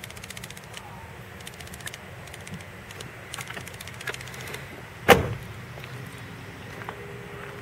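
A car door on a 1998 Mercury Grand Marquis shutting with one sharp thump about five seconds in, over a steady low hum and faint rapid ticking.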